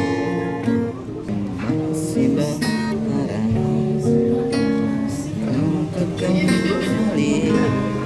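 Acoustic guitar strummed in a steady accompaniment, with a man singing long held notes over it.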